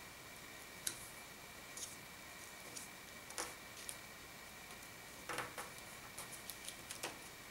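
A square of origami paper being folded and pressed flat by hand: scattered faint ticks and paper rustles, coming more often in the second half, over a faint steady hiss.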